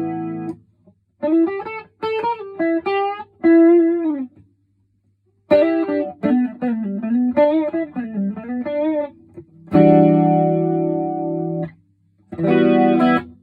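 Electric guitar, a PRS SE Custom 24, played through a BOSS DC-2 Dimension C chorus pedal on its first setting into a Vox AC30 amp. A held chord dies away, then short single-note phrases with bent notes and a pause, then two strummed chords near the end, each cut off.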